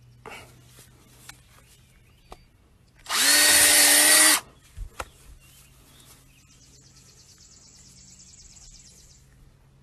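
Power drill spinning up and running steadily for about a second and a half, pressed into hard, dry ground.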